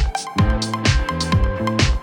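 Electronic background music with a steady kick-drum beat, about two beats a second, over a bass line and melody.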